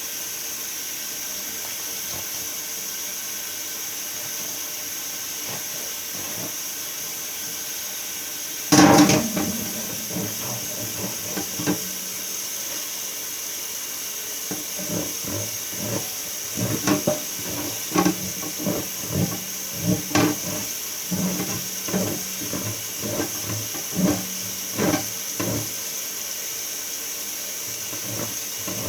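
Mini-fridge parts being scrubbed clean, knocking and clattering irregularly over a steady hiss, with one loud knock about nine seconds in.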